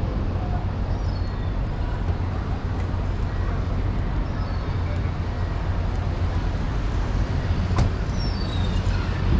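Outdoor city-square ambience: a steady low rumble of road and tram traffic, with a few short high chirps falling in pitch and one sharp click near the end.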